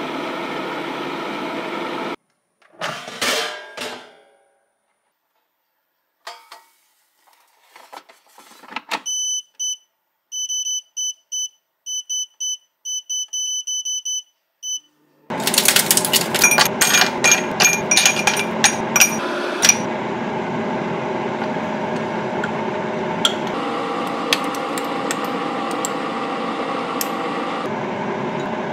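Lock&Lock air fryer's touch control panel beeping: a run of short, high beeps, two or three a second, as its settings are pressed. A few seconds later a loud steady whirring starts, with a flurry of clicks at first.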